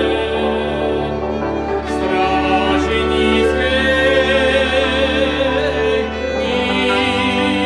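A Moravian cimbalom band playing a folk song: singing over bowed strings, with a steady bass underneath.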